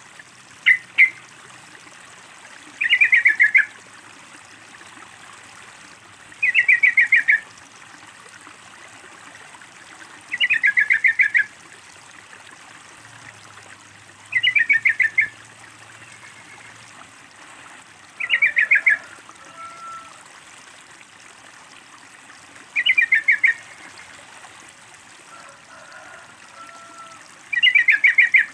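Yellow-vented bulbul (trucukan) song: a short bubbly phrase of quick notes, repeated about every four seconds, over a steady trickle of water.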